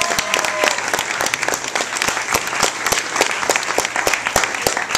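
Audience applauding, with many hands clapping in a dense, steady patter.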